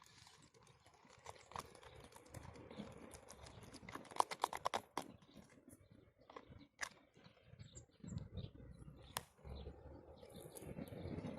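Thickening slime being stirred and scraped in a container: scattered sticky clicks and taps, with a quick run of several clicks about four seconds in.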